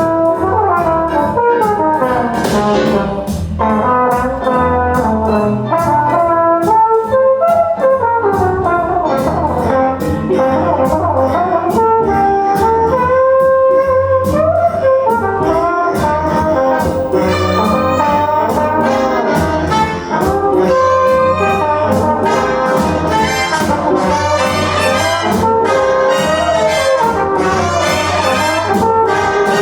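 Swing big band playing: trumpets and trombones carry the tune over saxophones, with drums keeping a steady beat.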